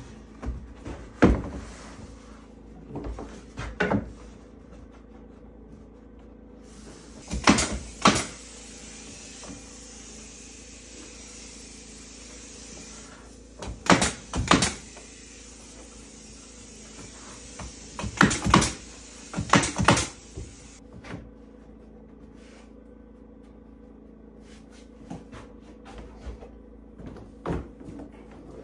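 Sharp wooden knocks and clacks as cedar boards are set down and shifted into place, in scattered groups of two or three. The short bangs about halfway through are a cordless nail gun firing into the boards.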